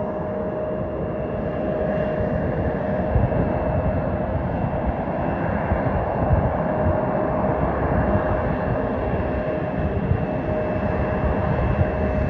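Jet airliner engines running: a steady, loud rushing noise with a constant whine, holding level with no clear approach or fade.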